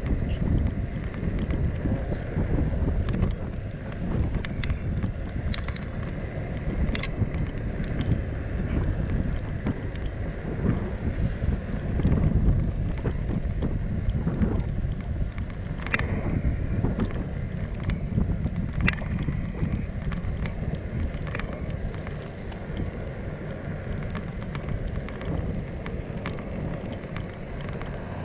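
Wind buffeting the microphone over a continuous rolling rumble, with a few sharp clicks scattered through.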